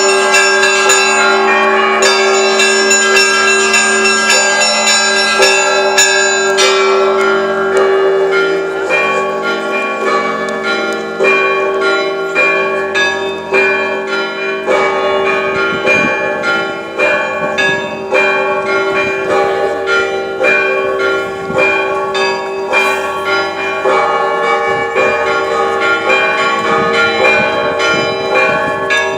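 Russian Orthodox church bells of the Kazan Cathedral ringing a peal: many bells of different pitches struck rapidly and repeatedly, with the tone of a lower bell held steady beneath them.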